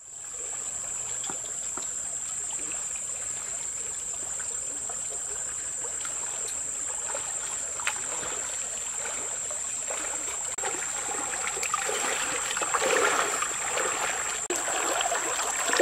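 Shallow stream running over its bed, with splashing footsteps of a person wading through the water, growing louder in the second half as they come close. A steady high whine sits above the water sound.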